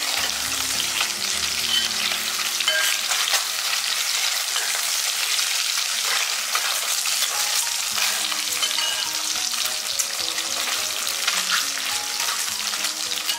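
Century eggs sizzling as they fry in oil in a clay pot, with a metal spoon scraping the pot bottom now and then as it turns and presses them.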